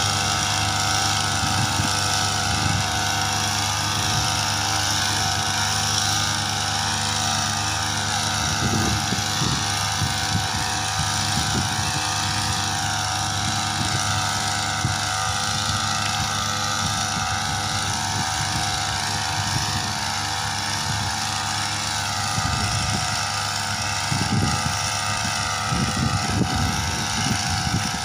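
Small petrol engine of a horse-mounted pesticide sprayer running steadily, its pitch wavering slightly as it pumps spray through the lance. Some uneven low rumbling comes in over the last few seconds.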